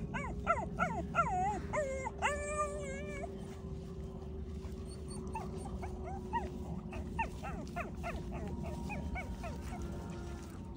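Rapid series of short, high, yelping animal calls, several a second. One call is drawn out and wavering about two seconds in; the calls are loudest in the first three seconds and fainter afterwards.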